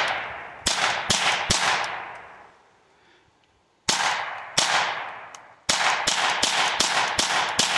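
Ruger Charger .22 LR semi-automatic pistol firing about a dozen sharp shots in two strings. A few come in the first second and a half, then after a pause of about two seconds a quicker run follows.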